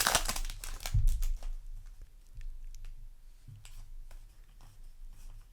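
Foil booster-pack wrapper crinkling and trading cards being handled, loudest in the first second or so, then dying down to faint taps and slides of the cards.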